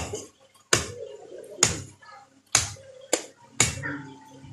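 Cleaver chopping beef on a wooden log block: about six sharp chops, roughly one a second, each with a short knock.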